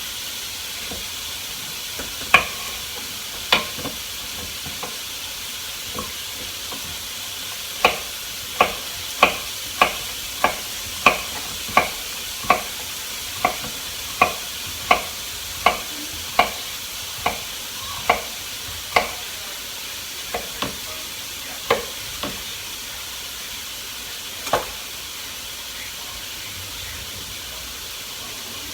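Sliced chicken thigh fillets sizzling steadily in a lightly oiled frying pan on medium heat. Sharp knocks sound over the sizzle: a few scattered ones early, then a steady run of about one and a half a second for some ten seconds, then a few more near the end.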